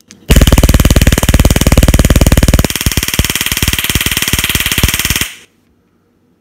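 Taser X26 stun gun crackling loudly as its electric arc fires into a piece of hot dog: a rapid, even stream of sharp snapping pulses lasting about five seconds, its standard discharge cycle, that stops abruptly. The crackle loses some of its low, heavy edge about halfway through.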